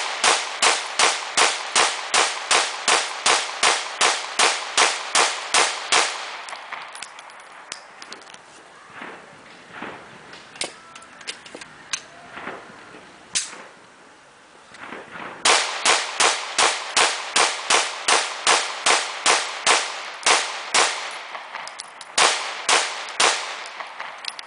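Caracal F 9mm pistol fired rapidly, about three shots a second: a string of roughly seventeen shots, then a pause with scattered fainter shots, then a second string of about fifteen and a few more shots near the end.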